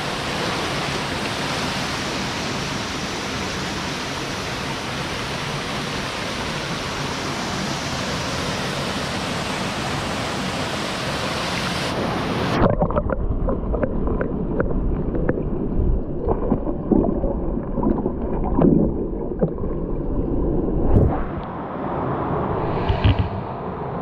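Steady rushing of a waterfall and its stream. About halfway through, the sound abruptly turns muffled and dull, with irregular low knocks and thumps.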